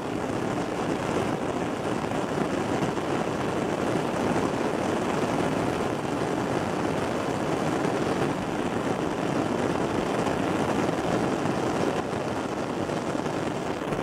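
Methane gas trapped under lake ice jetting out through a hole and burning as a blue flame: a steady rushing noise.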